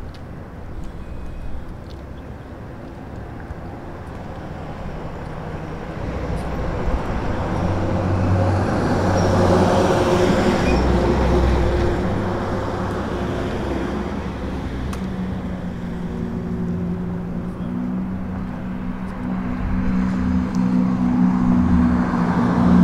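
Road traffic: a passing vehicle swells and fades, loudest about halfway through, and a steady engine hum comes in later and grows louder toward the end.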